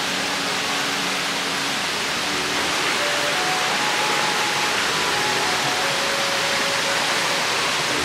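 Mountain stream rushing over rocks and small cascades below a waterfall: a steady, even rush of water.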